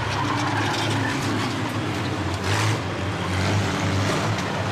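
Engines of banger-racing vans running together on the track, a steady low drone, with a brief louder burst of noise just past the middle.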